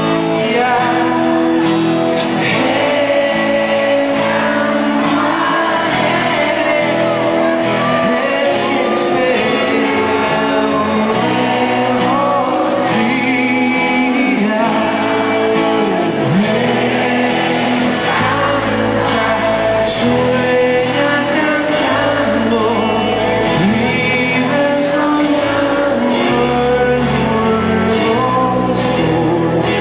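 Live pop band playing in a large hall, heard from the audience: a male singer with keyboard and electric and acoustic guitars. A heavier bass part comes in about two-thirds of the way through.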